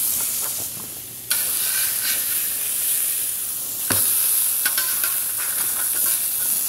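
Redfish fillet and shrimp sizzling on a hot Blackstone flat-top griddle, a steady hiss that jumps louder about a second in. Near four seconds a metal spatula knocks and scrapes on the steel as the fillet is flipped over.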